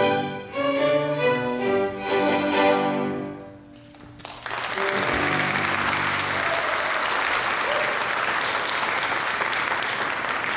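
A small ensemble of violins plays the closing notes of a piece, ending on a held chord that fades out about three and a half seconds in. After a brief pause, an audience applauds steadily.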